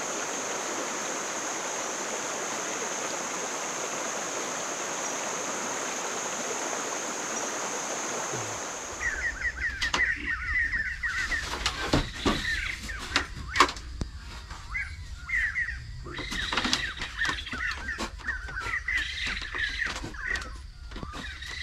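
Shallow stream rushing steadily over rocks, with a constant high thin tone above it. About nine seconds in it gives way abruptly to small birds chirping repeatedly, mixed with sharp clicks and knocks.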